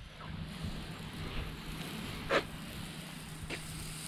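A small 12-volt spray pump hums steadily while water hisses from the spray line. Two short knocks sound about two and a half and three and a half seconds in.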